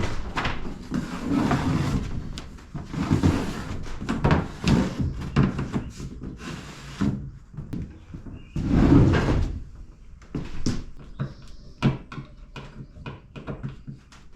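Wooden panels being handled and fitted into place: irregular knocks and bumps, with scraping and rubbing of wood against wood.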